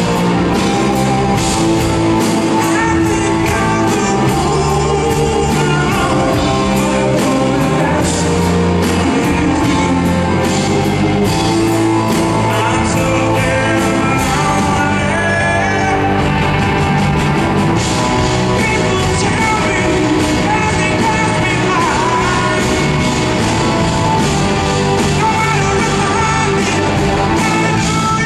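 Live rock band playing: electric guitar, bass guitar and drum kit, with a male lead vocal singing over them.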